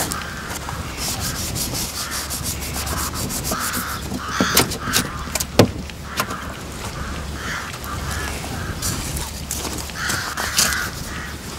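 Frost being scratched and rubbed off a car windscreen by hand, in quick scraping strokes with a sharp knock about halfway through. Crows caw repeatedly in the background.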